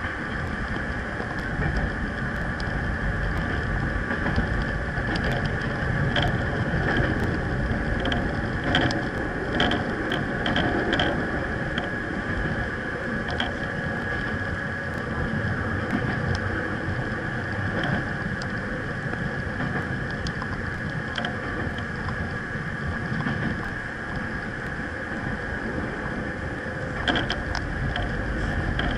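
Kobe Electric Railway electric train car running along the line, heard from inside the driver's cab: a steady rumble of wheels on rail with a constant high hum. A run of short clicks comes about six to eleven seconds in and again near the end.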